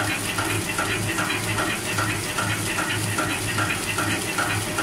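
Horizontal flow-wrap packing machine wrapping Play-Doh sticks, running with a steady hum and hiss and a regular beat of about two and a half a second as it cycles pack after pack.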